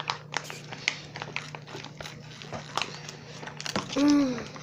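Foil Capri Sun drink pouches crinkling and clicking in the hands as they are drunk through straws, a scatter of small irregular ticks. A short voiced sound comes near the end.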